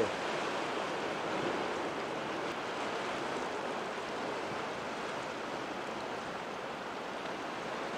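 Sea surf washing steadily against the shore, an even rushing noise with no distinct breaks.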